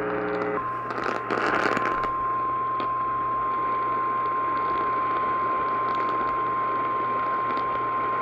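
NOAA Weather Radio 1050 Hz warning alert tone relayed over AM radio: one steady tone starting about half a second in, over static and hum, with a brief burst of crackle around a second in. The tone signals that a weather warning is about to be read.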